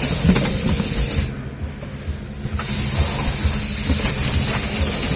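Pneumatic case erector running on compressed air at 6 bar, forming boxes: a steady air hiss that cuts off for about a second and a half a little over a second in, then comes back. Under it the machine's mechanism keeps up a low, regular thudding and clatter.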